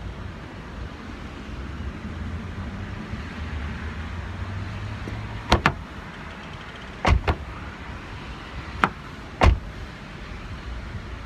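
Microfiber towel wiping a car door panel, then a series of sharp clicks in quick pairs from the car's door handle being gripped and let go.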